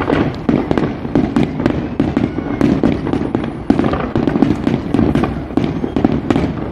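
Fireworks going off in quick succession: many sharp bangs and cracks at irregular intervals, several a second, over a continuous low rumble.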